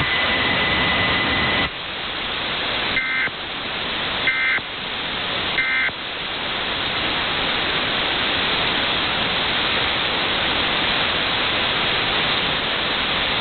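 Emergency Alert System end-of-message data signal heard over AM radio: three short, shrill two-tone digital bursts about a second and a half apart. Loud steady hiss and static from the AM reception lies under them and carries on alone afterwards. For the first couple of seconds a steady high whistle sits on top of the hiss.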